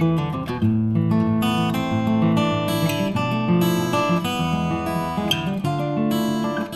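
Outro music: an acoustic guitar strumming chords.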